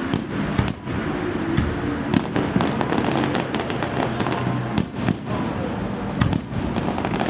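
Fireworks going off in a dense run of pops and crackles, one after another.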